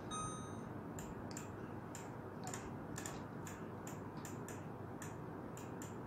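An LG microwave oven's control panel gives one short beep, then clicks at about two to three a second as its dial is turned to raise the cooking time.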